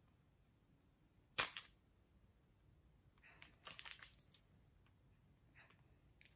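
A sharp plastic click about a second and a half in, then a few fainter clicks and rustles near the middle. This is a Mini Brands plastic capsule being pushed and pried at, and it is hard to open.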